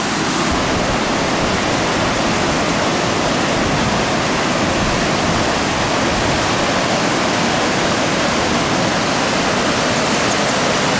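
Rogie Falls, a waterfall and rapids on the Black Water river, with the water cascading down the rocks in a loud, steady rush.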